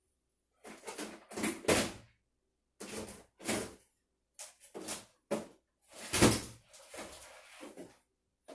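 Rummaging through a jumble of small household junk: an irregular string of clunks, knocks and rattles as things are pushed aside and picked up, the loudest knock about six seconds in.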